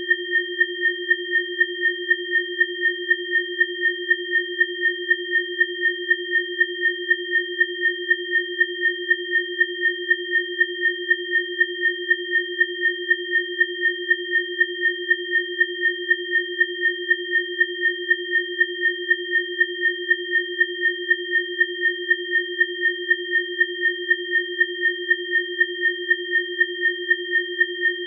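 Synthesized 'biofrequency' sine tones: three steady pitches, one low and two high, sounding together and pulsing evenly about three times a second.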